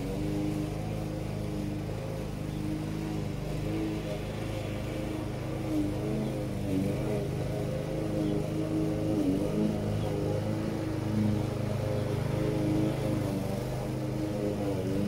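Small petrol engines running: a string trimmer cutting grass, its engine pitch wavering up and down as it works, with a push lawn mower running alongside.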